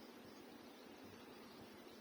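Near silence: a faint, steady background hiss with no distinct sound.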